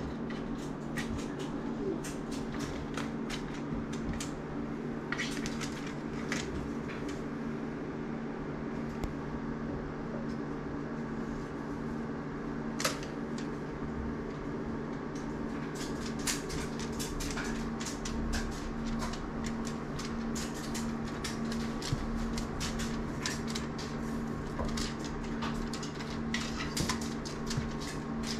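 Steady low machine hum in a small room, like a fan or air conditioner, with frequent light clicks and taps scattered throughout.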